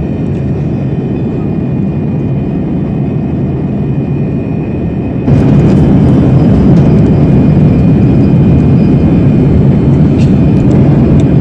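Steady cabin noise of a Boeing 787 Dreamliner in flight: a low, even rush of air and engine noise. It steps up abruptly in loudness about five seconds in.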